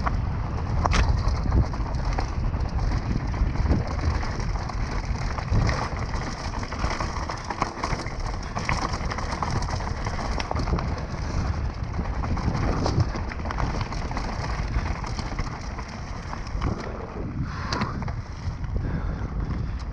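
Bike ridden fast down a rocky dirt forest trail, heard from a rider-mounted camera. Wind buffets the microphone, tyres rumble over dirt and stones, and the bike rattles with sharp knocks over bumps.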